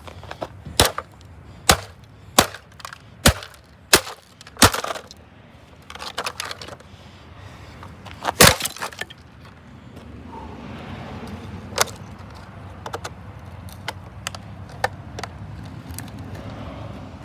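Sledgehammer blows smashing a Dirt Devil vacuum cleaner: six hard cracking strikes about a second apart, a short cluster of cracks, then the loudest blow about eight seconds in. A few light clicks follow.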